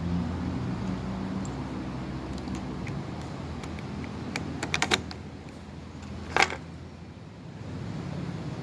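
Kawasaki Z650 parallel-twin engine idling with a steady low hum that weakens for a few seconds and picks up again near the end. A few sharp clicks come just before the middle, and one loud clack about six seconds in.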